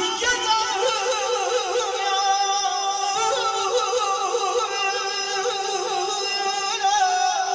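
Live amplified traditional music: a heavily ornamented melody with quick trills and slides over a steady held drone, with a male singer's voice through a microphone.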